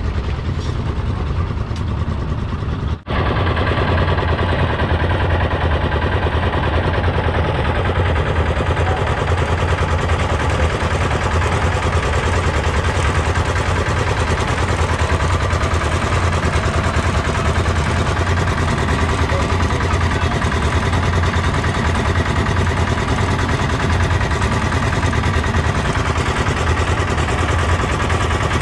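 Heavy engine-driven machinery running steadily and loudly, with a strong low hum and a fast, dense clatter; the sound cuts out for an instant about three seconds in, then carries on unchanged.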